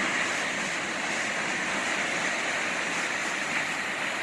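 Vernal Fall pouring onto the rocks at close range: a loud, steady rush of falling water and spray.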